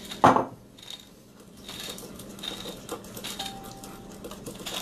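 Kitchen handling sounds: one sharp knock just after the start, then faint scattered clicks and clinks of utensils.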